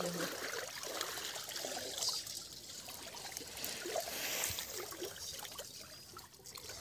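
Shallow canal water trickling and splashing as a hand net is lifted out and a man wades through the weedy water.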